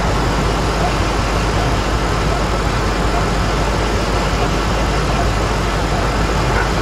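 Ford 5.4-litre V8 of a 2004 Lincoln Navigator idling steadily, recorded close up in the engine bay. The engine runs rough from a cylinder misfire that is being traced coil by coil.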